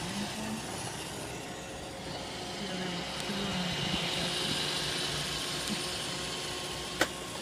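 iRobot Roomba 650 robot vacuum running, a steady whirring hum that grows louder in the middle, with one sharp click near the end.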